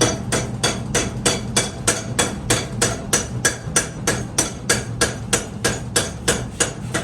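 Hammer blows on steel during forging of a leaf-spring cleaver blank, an even rhythm of about three strikes a second, over a steady low hum.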